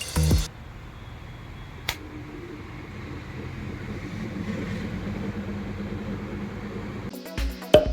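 Antique ceiling fan's motor running with a steady hum that slowly grows louder. A single sharp click comes about two seconds in.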